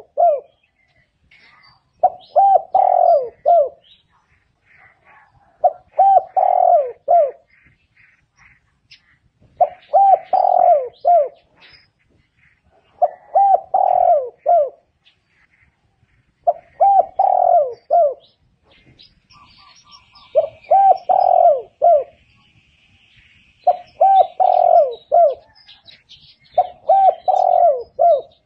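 Spotted dove singing its cooing song: a short phrase of a few low coos about every three and a half seconds, repeated about eight times.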